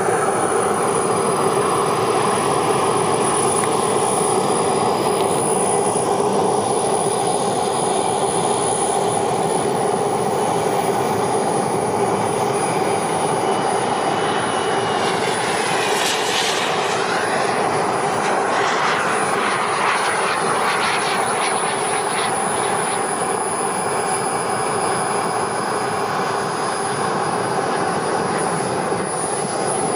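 Twin kerosene turbine engines of a 1/5.75-scale Skymaster F/A-18 Hornet model jet running steadily, with a high, constant turbine whine over the noise. About halfway through the pitch sweeps up and back down as the jet passes by.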